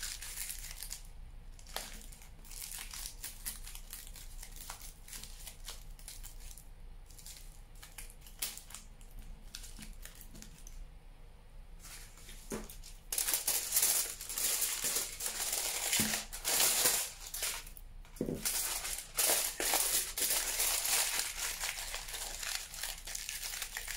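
Aluminium foil being crumpled and pressed by hand, crinkling in irregular bursts. It is sparse and quieter for the first half, then louder and almost continuous from about halfway on.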